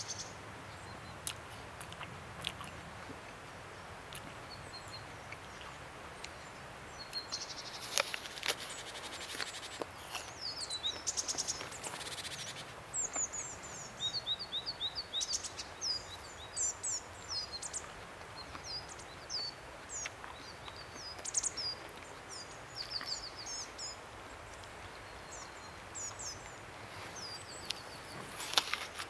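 Small birds chirping and calling over a steady outdoor hiss: quick series of short, high chirps and trills, with a few brief rattles, from about a quarter of the way in until near the end.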